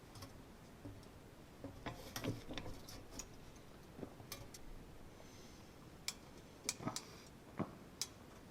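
Scattered, irregular faint clicks and light knocks, about a dozen over several seconds: small handling noises in a workshop.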